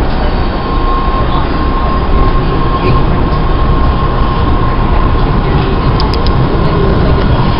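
MBTA Red Line subway train running: a loud, steady rumble with a steady high whine over it.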